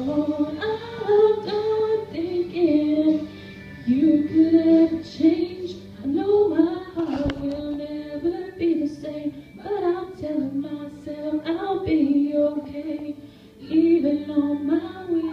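A woman singing a song into a microphone, holding long notes with short breaks between phrases.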